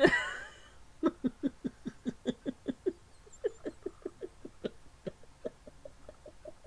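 A man imitating a duck with his voice: a loud rising whoop, then a long run of short, rapid quacking pulses, about four or five a second, that grow fainter near the end.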